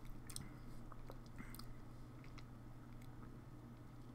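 Faint mouth sounds of a person swallowing and smacking his lips after a swig of soda, with a few small wet clicks in the first second and a half.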